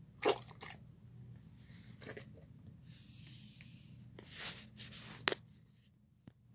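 Fork scraping and clicking against a bowl of chicken and rice as it is stirred: scattered short clicks and scrapes with a brief hiss about three seconds in and a sharp click a little after five seconds, over a low steady hum.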